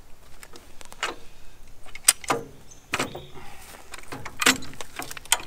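Hi-Lift jack's steel climbing mechanism clanking and clicking as its handle is worked: irregular sharp metallic clicks, the loudest about two seconds in.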